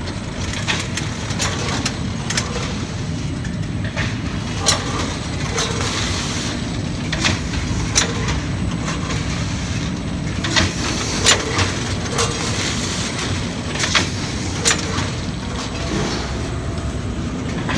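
PMI GR-35D dual-lane multi-pack shrink bundler running in production: a steady machine rumble with sharp clacks at irregular intervals of about a second as its rams and seal bar cycle.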